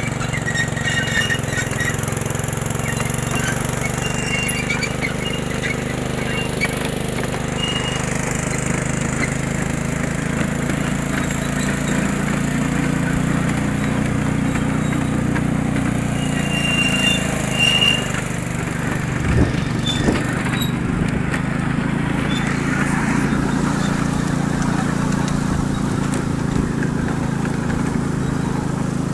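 Miniature ride-on park train running along its track, heard from aboard one of its cars. A steady low drone and rattle carry through, with brief high wheel squeals now and then and a couple of knocks about two-thirds of the way through.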